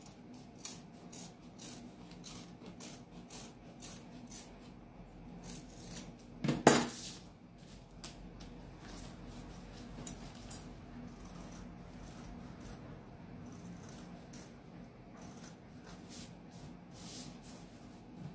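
Fabric scissors snipping through cloth in a run of short, separate cuts. About six and a half seconds in there is one louder handling noise.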